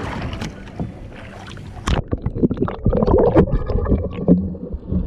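Water sloshing and splashing against a boat's hull at the surface, with wind on the microphone. About two seconds in the sound turns duller and fills with many sharp splashes and clicks.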